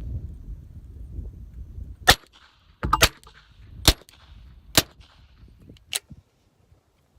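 A string of suppressed 9mm pistol shots from a Glock 43 fitted with a Rugged Obsidian 9 suppressor: sharp cracks about a second apart, two of them close together, starting about two seconds in.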